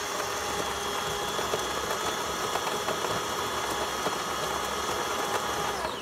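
Built-in burr grinder of a DeLonghi PrimaDonna S Deluxe bean-to-cup espresso machine grinding beans at the start of a brew cycle: a steady motor whine with crackle that winds down with a falling pitch at the very end.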